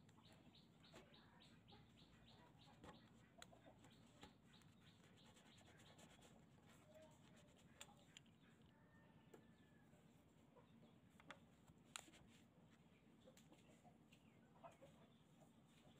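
Near silence, with faint scraping and clicking of a utility-knife blade on old rusted scissors in short repeated strokes and a few sharper ticks.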